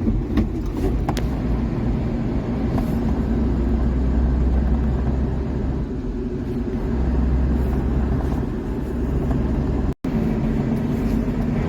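Suzuki Carry DA63T kei truck with its 660 cc three-cylinder engine running under way, a steady low rumble that swells twice. The sound cuts out for an instant near the end.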